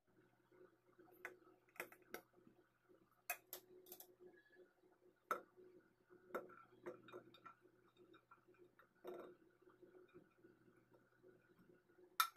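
Faint, scattered clicks and taps as green herbs and then peeled garlic cloves are tipped into a stainless steel mixer-grinder jar. A low steady hum runs underneath, and the sharpest click comes near the end.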